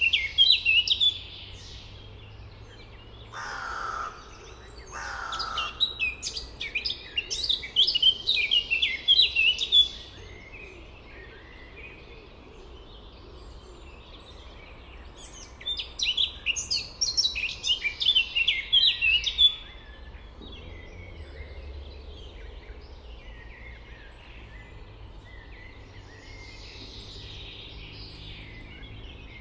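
Songbirds singing in several quick, chirpy bursts, each lasting a few seconds, with quieter scattered chirps in the second half. Two short, lower-pitched calls come about three and a half and five seconds in. A steady low background rumble runs underneath.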